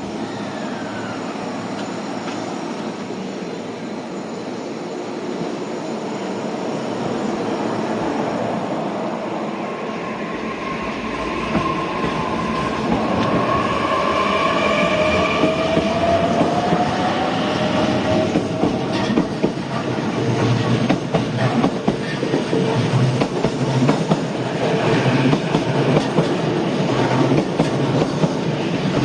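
Electric train running past at close range, getting louder. Around the middle a motor whine climbs in pitch, and in the second half the wheels clack rapidly over rail joints.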